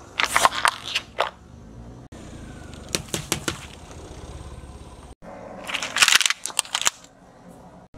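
Car tyre rolling over and crushing small plastic objects: three bursts of sharp cracking and crunching, about a second in, around three seconds in and around six seconds in.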